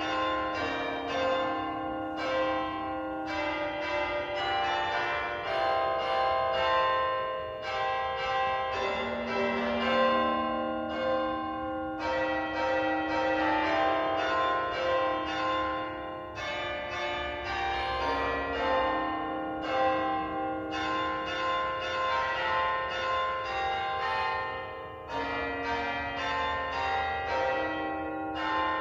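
Church bells ringing: a continuous run of struck notes, several a second, each ringing on as the next one sounds.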